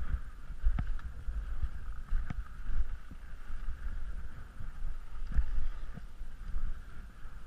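Skis sliding over off-piste snow with a steady hiss, under low wind buffeting on the microphone, with a few sharp knocks.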